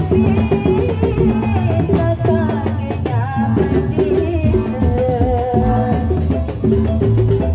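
A woman singing into a microphone over loud, amplified Sasak procession music, with drums beating steadily under a wavering sung melody.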